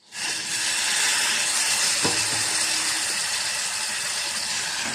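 Pieces of thorn brinjal, soaked in salt water, sizzling steadily in hot oil in a pan, with a single knock about two seconds in.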